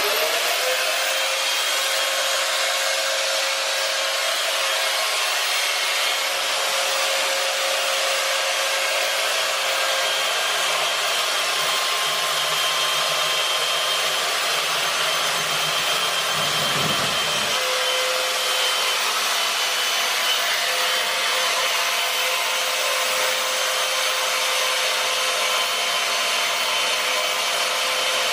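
Cheap portable bandsaw cutting through metal pipe: the motor kicks on abruptly and runs steadily under load with a constant whine over the hiss of the blade, cutting cleanly without sparks.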